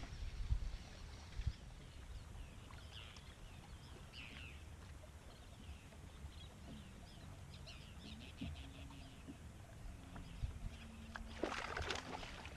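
Low rumble of wind and water against a bass boat on open water, with faint bird chirps in the first half. A short rush of noise comes near the end.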